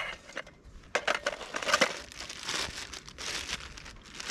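Crinkly pouch being handled and opened, rustling and crinkling, with a sharp click about a second in.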